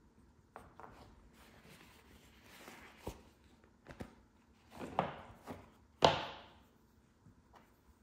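Hands working on an Audi RS4 B7 gear knob and its leather shift boot: plastic parts click and knock, and the leather rustles and scrapes in short rushes. The loudest is a sharp knock about six seconds in.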